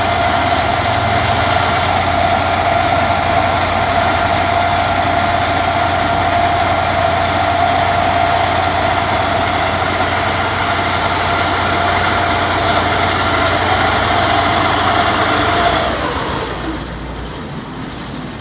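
Heavy engine-driven machine running at a steady speed, with a steady whine over a low hum; it is shut down about sixteen seconds in, the whine sagging and dying away.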